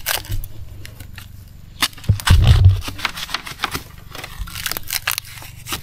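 Crackling, snapping and scraping of dry leaves, twigs and bamboo being handled and stepped through in undergrowth, with one loud, dull thump about two seconds in.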